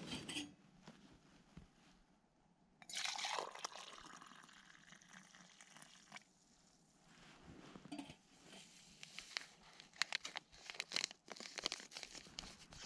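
Camp cooking gear being handled: a brief pour of liquid about three seconds in, then a run of small clicks and crinkles near the end.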